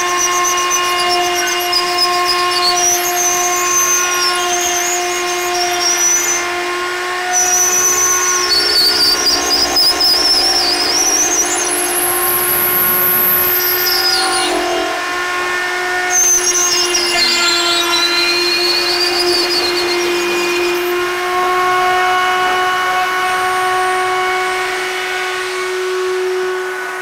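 Router in a router table running steadily at high speed while a cordless drill spins a square wooden strip through a jig past the bit, turning it into a round arrow shaft. The cutting and the drill add a higher whine that wavers up and down over the steady motor note. The drill spins the blank too slowly, its battery running down, which the owner blames for the thread-like ridges the cut leaves.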